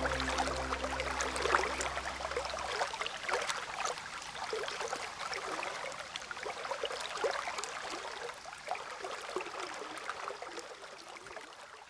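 Water trickling and gurgling with many small splashes, under a few held low music notes that stop about three seconds in; the whole sound fades out gradually toward the end.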